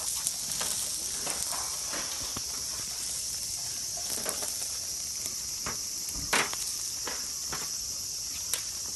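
Steady high-pitched insect chorus, with scattered light clicks and a sharper knock about six seconds in.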